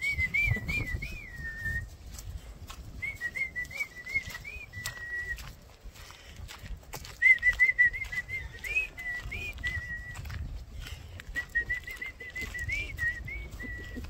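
A person whistling a tune in four short phrases, each a quick run of wavering notes that settles on a held note, over a low rumble.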